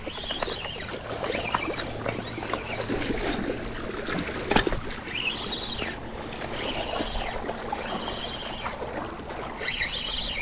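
Water splashing and swirling as a hooked pike is fought in close to the bank on spinning tackle, in repeated surges about a second apart, with one sharp click a little before halfway.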